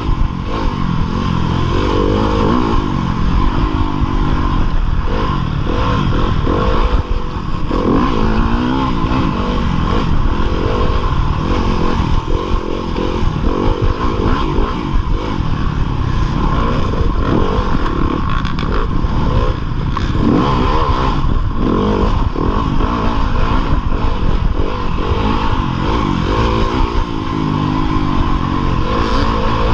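2015 Yamaha YZ250FX dirt bike's 250 cc four-stroke single-cylinder engine revving up and down repeatedly under race riding, heard close from the rider's chest.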